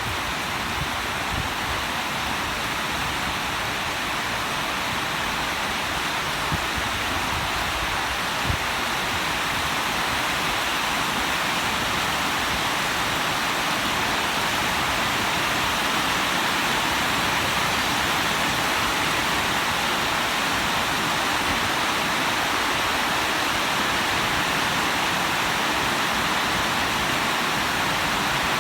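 Steady heavy rain falling in an even hiss, with a couple of sharper drop hits in the first ten seconds.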